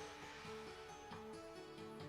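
Quiet background music: a slow melody of held notes.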